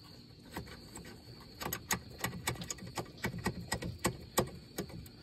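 Ratchet on a long 10 mm socket clicking in quick, uneven strokes as a nut is run down onto a ground stud.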